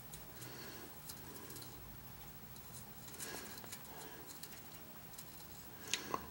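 Faint scratching and light ticks of a thin stick dabbing baking-soda paste onto a nichrome wire patch among a toaster's heating elements, with two sharper clicks near the end.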